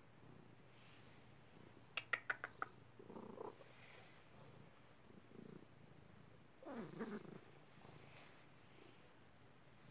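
Domestic cat purring softly and steadily. About two seconds in comes a quick run of five sharp clicks, the loudest sounds here, and near seven seconds a brief sound that bends in pitch.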